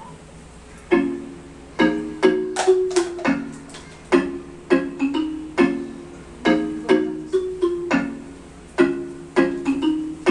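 Instrumental music: a melody of plucked string notes, each struck sharply and dying away, played at an unhurried pace.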